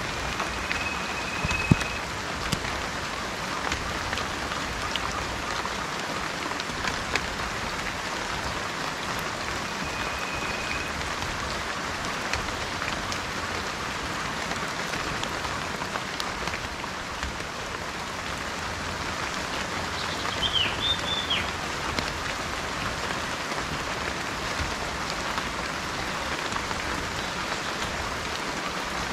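Steady rain falling with scattered drips. A bird gives a short, level whistle near the start and again about ten seconds in, and a quick run of chirps about twenty seconds in.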